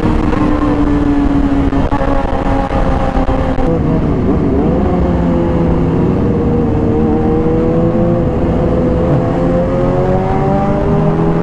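Sport motorcycle engine heard from the bike itself under a steady rush of wind noise. The engine note eases down over the first few seconds, wavers briefly about four seconds in, then climbs slowly as the revs build again.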